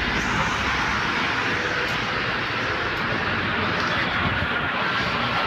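Steady roar of road traffic, an even rushing noise with no single vehicle standing out.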